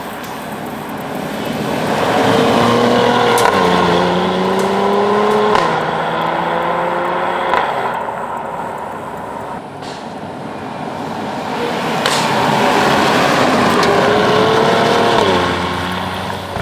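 2018 Mercedes-AMG GLE 43's 3.0-litre biturbo V6 exhaust under two hard accelerations: the note climbs and then drops sharply at each upshift, twice in the first pull and once near the end of the second. A few short, sharp cracks sound among the revs.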